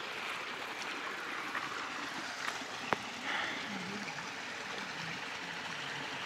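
Irrigation water running over and through a field, a steady rushing flow, with a single sharp click about three seconds in.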